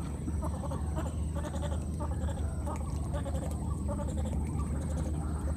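Baby macaque giving short, repeated cries over a steady low rumble.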